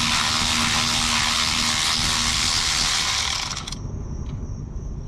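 A power tool runs steadily for about three and a half seconds, spinning out a starter mounting bolt, then stops.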